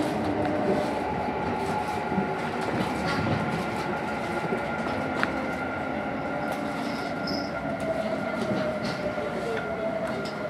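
Kintetsu electric train running through an underground station, heard from the front cab: steady rumble of wheels on rails with a thin, slowly gliding tone and a few sharp clicks.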